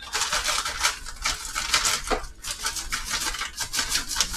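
Frozen shrimp shaken from a plastic bag into a pan: a dense, irregular crinkling and rattling of the bag and the frozen pieces tumbling in.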